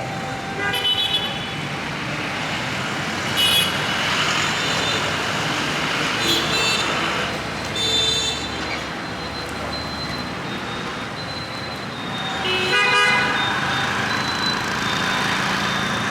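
Road traffic running steadily, with vehicle horns honking in short blasts about five times, loudest a few seconds in and near the end.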